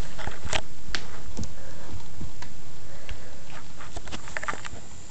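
A miniature pinscher puppy moving about: scattered light taps and scuffles, with a small cluster of sharper clicks near the end.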